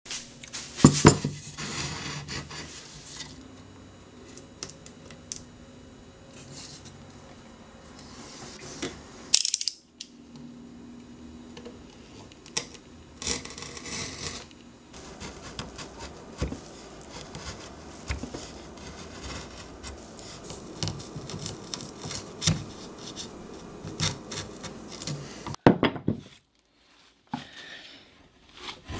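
Hand tools working a wooden panel: scattered clicks and knocks, and scraping of tools on wood. Near the end a chisel pares shavings from the panel.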